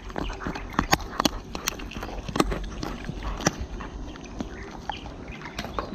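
A dog gnawing a large stewed bone, its teeth cracking and crunching on it in irregular sharp clicks.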